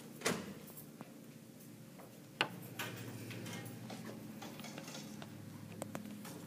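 Light knocks and clicks as two people sit down on metal-framed chairs and settle in, the sharpest about a third of a second and two and a half seconds in, over a steady low room hum.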